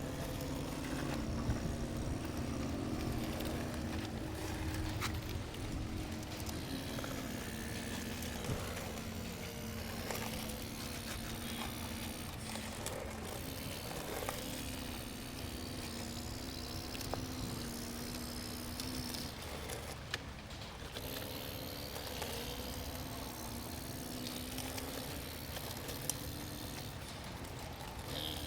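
Radio-controlled model excavator working: its motor hums steadily, the pitch shifting a little and dropping out briefly past the middle, with scattered small clicks and knocks.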